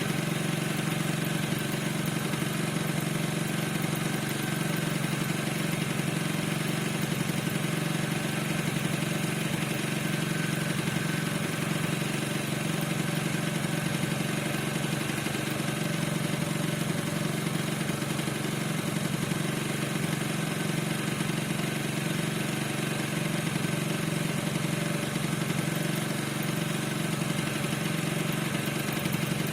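Piaggio NRG 50 scooter's 50 cc two-stroke engine idling steadily, with a thin steady squeal above the engine note. The owner cannot find the cause of the squeak.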